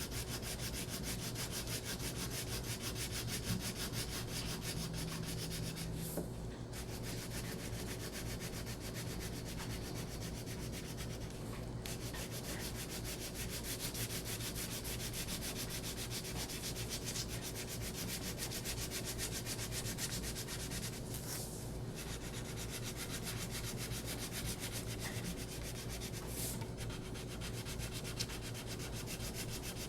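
Wax crayon scribbling on paper in quick back-and-forth strokes, colouring in an area, with a few short pauses as the crayon is lifted.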